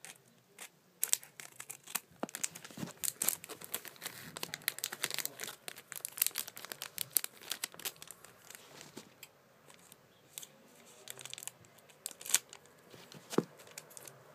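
A trading-card booster pack's foil wrapper being torn open and crinkled: irregular sharp crackles and rustles, thickest in the first half, thinning out, then a few louder crackles near the end.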